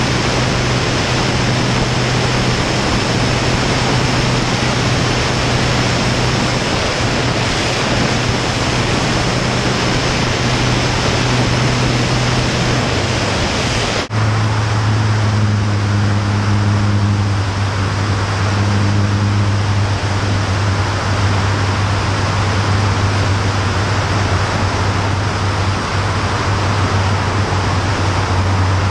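XtremeAir XA42's six-cylinder Lycoming 580 engine and propeller droning steadily in flight, under heavy wind rush on the wing-mounted microphone. About halfway through the sound cuts and the drone comes back at a lower pitch.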